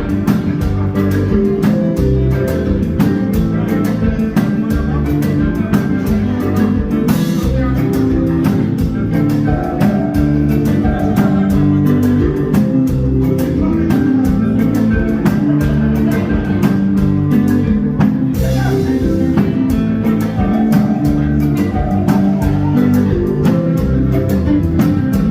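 Band music with guitar and drums playing a steady beat.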